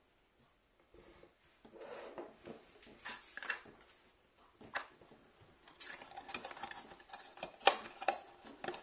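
Small cardboard box and a plastic switch module with its wires being handled and packed back into the box: irregular rustling, scraping and light clicks starting about a second in, with a sharper click near the end.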